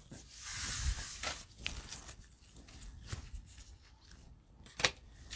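Faint handling noise of trading cards and a foil pack wrapper: a brief crinkly rustle just after the start, scattered light clicks, and one sharper click near the end.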